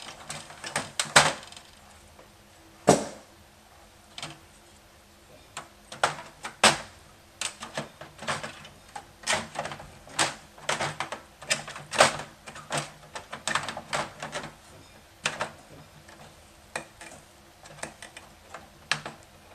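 Irregular clicks and small metallic taps of a screwdriver and wire ends being worked loose on a Macintosh II's metal case, with one louder knock about three seconds in.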